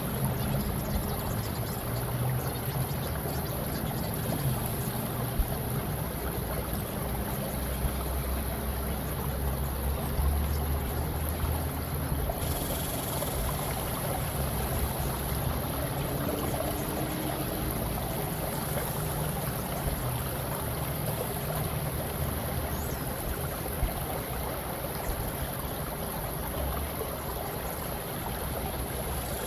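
Steady running water, like a flowing stream, with a low rumble underneath and faint steady tones mixed in.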